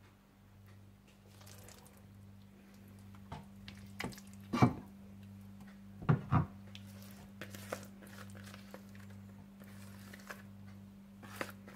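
A few soft knocks and squishy handling sounds as a marinated mutton leg is placed into a large cooking pot, over a steady low hum; the loudest knocks come about halfway through.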